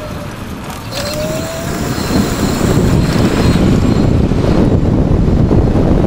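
High-voltage e-bike motor whine sinking and then, from about a second in, rising in pitch as the bike picks up speed, with a click as it begins. Wind rushing over the microphone grows louder as the speed rises.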